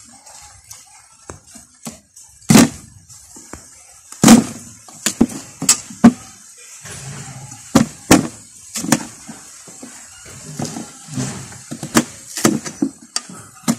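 A knife chopping a yam tuber into small setts for minisett propagation, the blade knocking through the flesh onto the cutting surface. It makes a string of irregular, sharp knocks, some in quick pairs and some spaced out.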